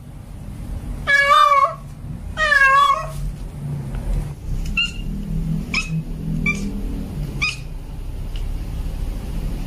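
Tomcat in heat calling for a female: two drawn-out, wavering meows about a second apart. Four short high-pitched chirps follow a little later, over a low steady rumble.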